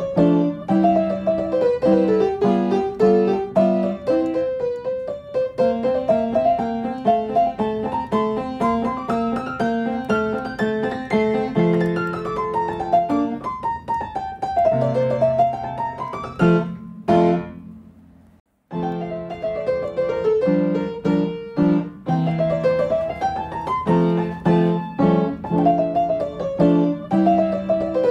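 Background music: a piano-like keyboard playing quick note runs that climb and fall. The music cuts out briefly about two-thirds of the way through, then resumes.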